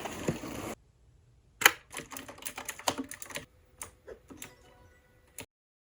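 Typing on an AULA F2088 typewriter-style mechanical keyboard: a quick run of key clacks, then a few single keystrokes, the last about five seconds in. A short burst of hiss comes first.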